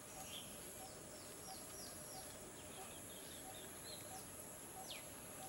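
Forest ambience of birds calling: runs of short falling whistles, then one longer falling whistle near the end, over a steady high-pitched insect drone. A soft low note repeats about every two-thirds of a second throughout.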